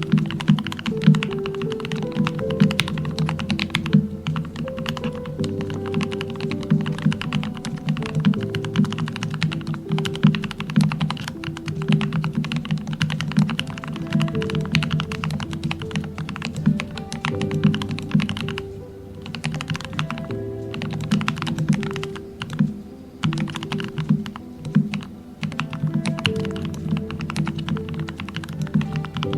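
Steady fast typing on a modded Royal Kludge RK68 mechanical keyboard, each keystroke a muted, deep 'thock', with a couple of brief pauses past the middle. Soft background music plays underneath.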